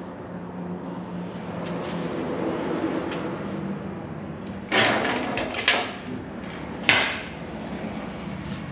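A few sharp knocks and clatters over steady shop background noise: two close together about five seconds in, and one more about seven seconds in.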